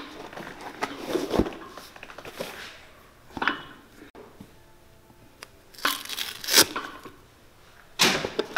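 Worn sole and heel layers of a cowboy boot being torn and pried off with pincers: a string of short tearing and cracking sounds with quiet gaps between, the loudest about two thirds of the way in.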